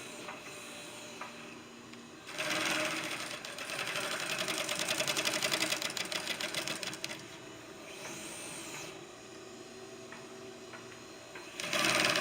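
Industrial sewing machine stitching in two runs of rapid, even needle strokes: one starting about two seconds in and lasting about five seconds, then a second starting near the end, with a quieter pause between while the fabric is turned.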